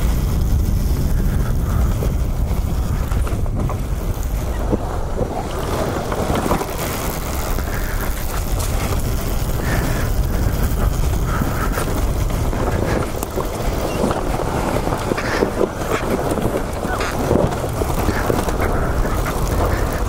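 Dirt bike engine running steadily as the bike rides along single-track trail, mixed with wind buffeting on the helmet microphone.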